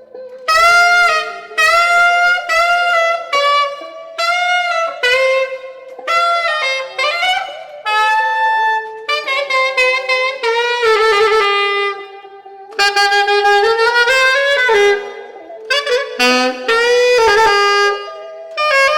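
Solo saxophone playing a phrase of separate notes, mostly short and some held longer, with two brief breaks for breath.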